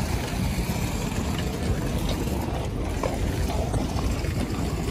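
Steady low rumbling noise of a railway station platform, with a few faint clicks and no clear event standing out.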